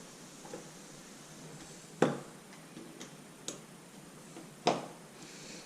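Scattered sharp clicks and knocks of metal door-knob hardware being worked with a screwdriver while fitting a new door knob, with two louder knocks about two seconds in and near the end.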